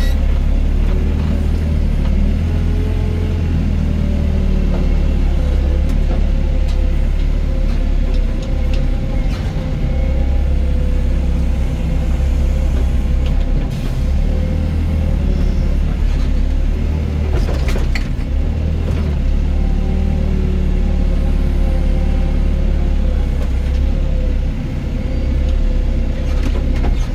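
Doosan DX55 mini excavator running steadily as it works, a low engine rumble with a steady whine over it and a few knocks partway through.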